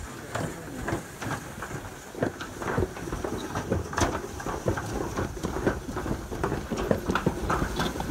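Toboggan sleds rattling and clattering as they run down a steel slide chute, with a quick, irregular string of knocks.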